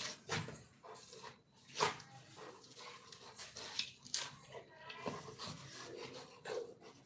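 A dog gnawing and ripping the fibrous husk off a coconut: irregular crunches and tearing sounds, with the dog panting between bites.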